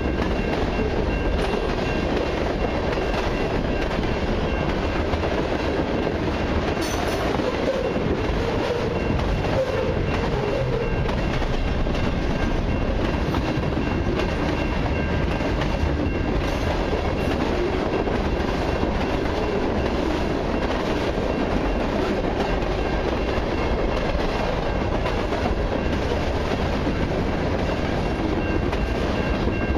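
Freight cars of a long mixed freight train, lumber flatcars and autoracks, rolling steadily past at close range: continuous wheel-on-rail noise with no break, and a faint steady high tone underneath.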